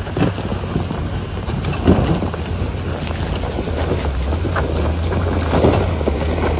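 A Nissan 4WD's engine running low and steady as it crawls over a rocky dirt track, with tyres crunching over loose stones and a few sharper knocks as rocks are crossed. Wind rushes over the microphone.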